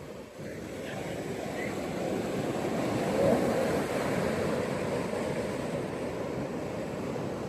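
Ocean surf washing onto a beach: a steady rushing of waves that swells to a peak about three seconds in and then eases back.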